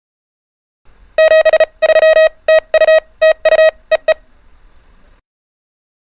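Morse code (CW) practice tone keyed in a quick run of short and long beeps, dots and dashes on one steady pitch. It starts about a second in and lasts about three seconds.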